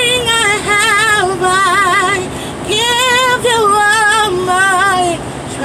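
A woman singing a wordless run of drawn-out, wavering notes with heavy vibrato, over the steady low rumble of a truck cab on the move.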